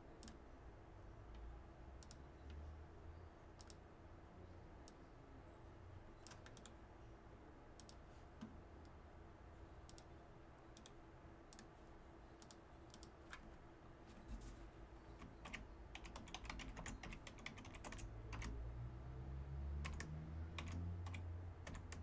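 Computer keyboard typing: a few scattered key clicks at first, then quick, dense typing through the last third. A faint low rising hum sits under the typing near the end.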